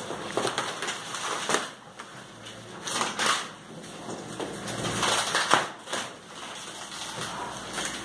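Clear plastic wrapping on a cardboard refrigerator carton crinkling and rustling in irregular bursts as it is pulled and torn off.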